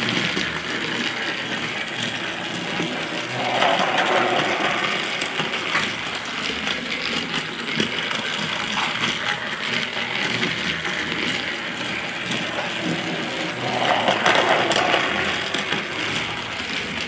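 Battery-powered Trackmaster toy train engine running on plastic track: a steady motor whir with a fast rattle of wheels and gears, growing louder twice as it passes close.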